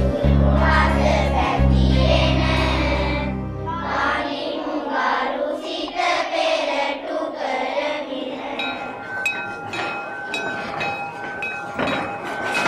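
Soundtrack music with a deep bass line for the first few seconds, then a group of children singing a prayer together. Short, evenly repeated instrumental notes join in about two-thirds of the way through.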